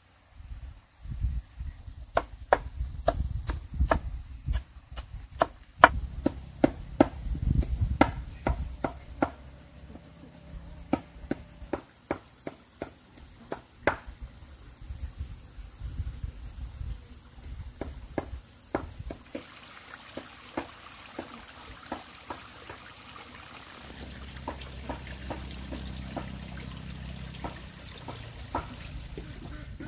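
Insects chirring with a steady, finely pulsing high tone, over a run of sharp knocks at two or three a second that stops about two-thirds of the way through.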